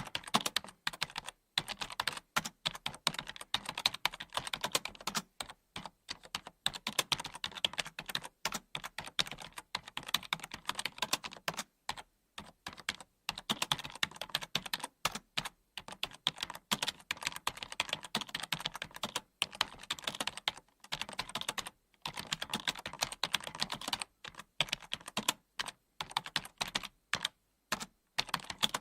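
Typing on a computer keyboard: quick, irregular key clicks in runs, broken by short pauses.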